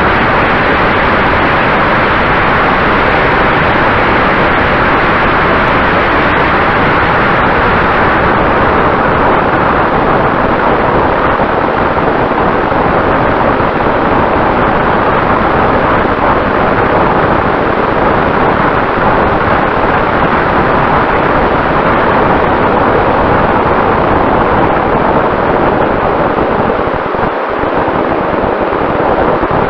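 Loud, steady engine and rushing-air noise of a vehicle travelling at speed, with a faint steady whine.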